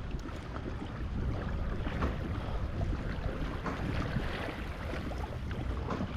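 Wind buffeting the microphone, a steady low rumble, over water lapping and splashing against the hull of a Hobie Outback kayak under way.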